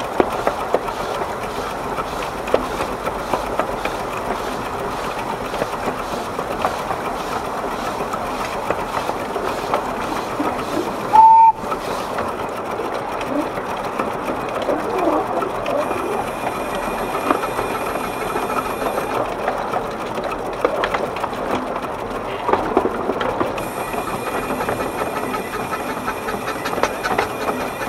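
12¼-inch narrow-gauge steam locomotive built by the Exmoor Steam Railway, running steadily with a constant clatter of wheels on the track. About eleven seconds in, a single short, loud whistle blast sounds.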